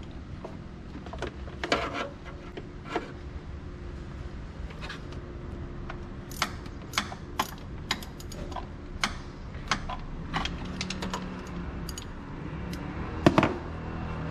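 Irregular sharp metallic clicks and clinks of hand tools and parts during transmission filter work, over a steady mechanical hum. A louder clatter comes near the end.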